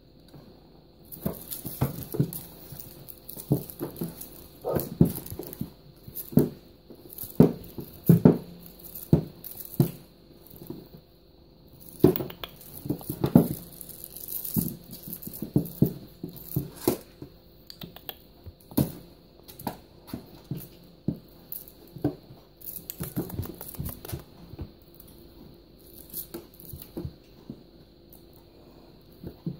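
A Russian Blue kitten playing with a feather wand toy: irregular bumps and thumps of paws and body on a hard surface, with the feathers rustling and scraping as it bats at, bites and wrestles them.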